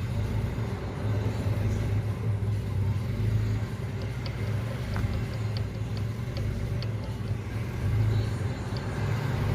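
Nissan Frontier pickup engine running steadily at idle: an even low hum with no revving, and a run of faint light ticks about halfway through.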